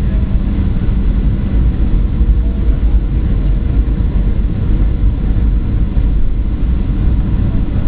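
Steady loud low rumble inside the cabin of a Boeing 737-800 landing on a wet runway: engine and airflow noise heard through the fuselage, with a few faint steady tones above it.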